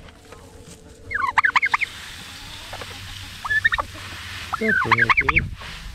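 Turkey tom gobbling three times: a short rapid warbling call about a second in, a brief one midway, and the longest and loudest near the end.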